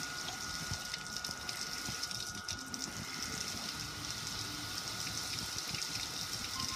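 Water pouring steadily over the metal lid and control panel of a gas grill, splashing and running off in sheets onto the ground below.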